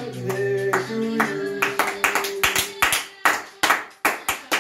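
A few people clapping their hands together in a steady rhythm, about two or three claps a second, the claps starting a little under two seconds in.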